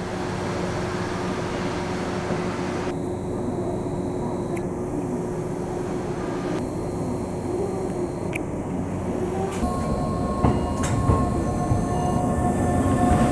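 Tobu electric commuter train at a station platform, a steady rumble and hum of the train. A few faint clicks are heard, and some steady higher tones join in over the last few seconds.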